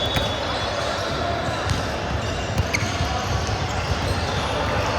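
A ball bouncing on a hard gym floor with short sneaker squeaks, over indistinct chatter from players and onlookers in a large hall.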